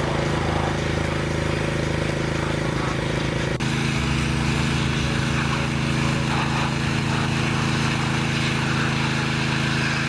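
Small petrol-engine pressure washer running steadily, with the hiss of its water jet spraying metal brake calipers in a plastic crate. The sound dips briefly about a third of the way in.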